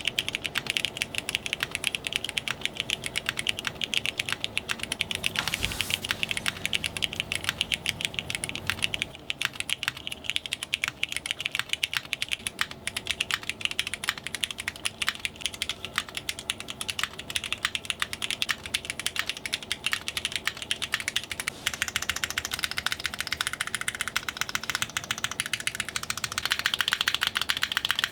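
Continuous typing on a custom mechanical keyboard with Cherry MX Black linear switches on a polycarbonate plate, no foam or dampening, and cherry-profile keycaps, giving a rapid, unbroken stream of keystrokes. A deeper single stroke comes about six seconds in. The typing gets busier and louder over the last several seconds.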